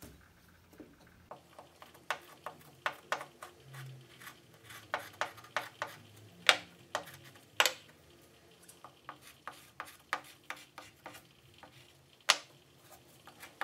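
A thick stick of coloured chalk pressed hard and stroked along the edge of a sheet of paper on a hard desk: irregular scratchy ticks and taps, with a few louder knocks.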